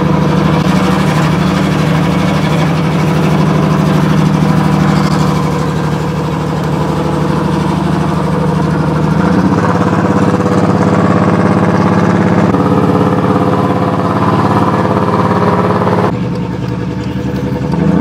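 1992 Mercedes 190E's inline-six engine and loud aftermarket exhaust running while the car drives at low city speed, heard from inside the cabin. The engine has a misfire. The engine note drops about halfway through and quietens near the end as the car slows.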